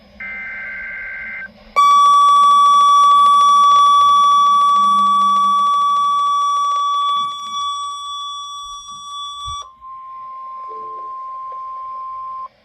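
A short burst of Emergency Alert System SAME digital data tones, then the NOAA Weather Radio 1050 Hz warning alarm tone, very loud and steady for about eight seconds, signalling the start of a weather alert. A fainter steady tone at nearly the same pitch follows for about three seconds and cuts off.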